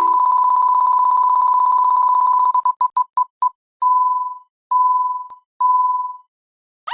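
Railroad crossing warning bell ringing as one high electronic tone, pulsing very fast and steadily for about two and a half seconds. It then stutters and breaks up into short bits, and slows to three separate dings, each fading out.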